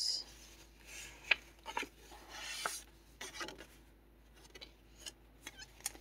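Paper pages of a handmade junk journal being turned and handled: soft rustling and rubbing of paper, with a few light clicks and taps.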